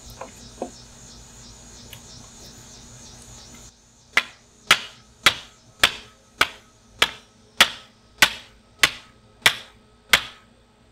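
A hammer driving a wooden stake into the ground: eleven sharp, evenly paced strikes about two every second, starting about four seconds in.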